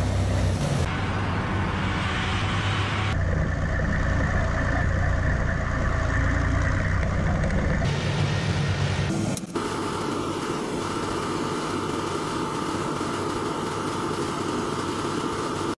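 Engines of heavy military trucks running as they drive, a deep steady rumble that changes abruptly at cuts between clips. About nine and a half seconds in it gives way to a lighter, more even vehicle noise.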